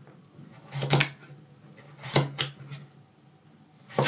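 A broad hammered-steel kitchen knife slicing raw pumpkin thinly on a wooden cutting board: a sharp knock of the blade against the board with each cut, about one a second.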